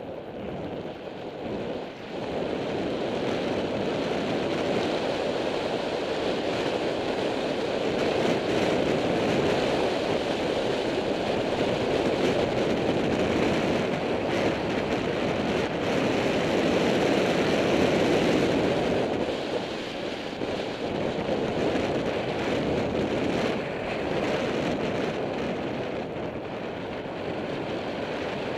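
Wind rushing over the microphone from riding fast downhill: a steady rushing noise with no engine tone, a little louder through the middle and easing somewhat near the end.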